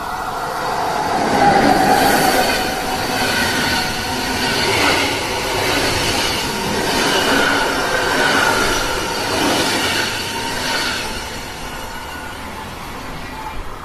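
SBB electric passenger train passing, its coaches' wheels rumbling on the rails with a high wavering squeal. It is loudest about two seconds in and dies away after about eleven seconds as the last coach goes by.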